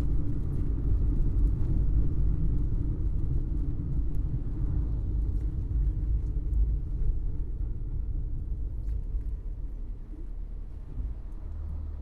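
Ford Fiesta car running with a low engine and road rumble that gradually fades over the seconds.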